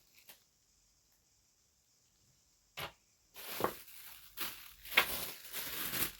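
Plastic packaging crinkling and rustling in irregular bursts as toy race-track parts are handled and unwrapped. It is quiet at first, with one short rustle near the middle, and the handling grows busier in the second half.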